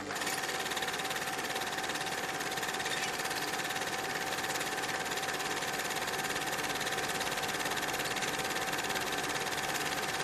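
A small machine running steadily, a fast, even mechanical whirr with a constant whine through it.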